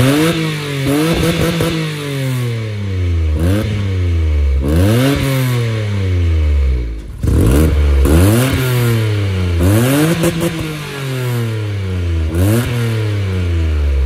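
Citroen C1 engine being free-revved at a standstill, heard at the exhaust: repeated blips of the throttle, each a quick rise in pitch and a slower fall back to idle. For about the first seven seconds the catalytic converter is still fitted; after an abrupt cut the catalyst has been removed, and the exhaust sounds much the same, not really much different.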